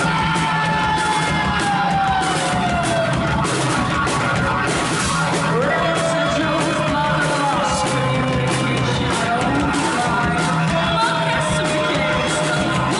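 Heavy rock band playing live and loud: distorted guitars and cymbal-heavy drums with yelled vocals, and long sliding notes that drift slowly down.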